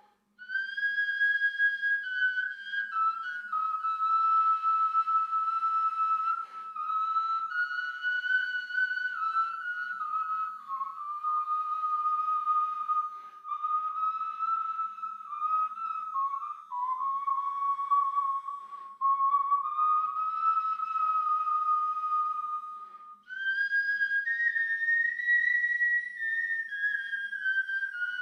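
Background music: a slow melody of long held, high notes on a flute-like wind instrument, played in phrases with short breaks between them.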